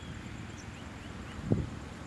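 Outdoor low rumble of wind on the microphone, with a single dull thump about one and a half seconds in and faint, brief high chirps.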